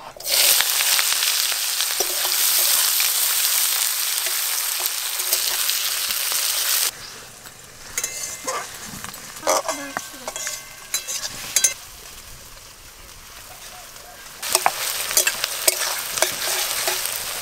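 Chopped onions hitting hot oil in a steel kadai over a wood fire and sizzling loudly for about seven seconds, cumin seeds and bay leaf already frying in it. Then a quieter stretch with scattered taps and scrapes, before the sizzle comes back as the onions are stirred with a metal spatula near the end.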